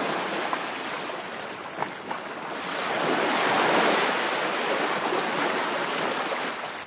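Ocean surf washing onto a beach, a steady roar that swells loudest around the middle as a wave breaks, then eases off.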